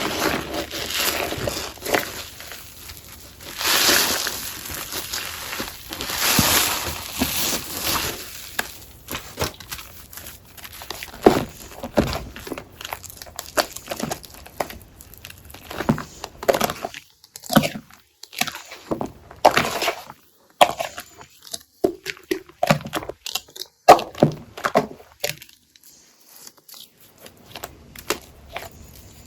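Crunchy gym chalk paste on a sponge crackling and crunching as it is pressed and squeezed, in irregular runs of small crackles, with two longer grainy crunches about four and six and a half seconds in.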